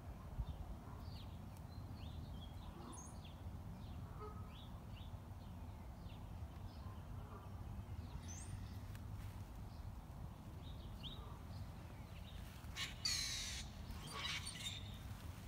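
Small birds chirping in short high notes throughout, with one louder, harsh call near the end, over a steady low rumble.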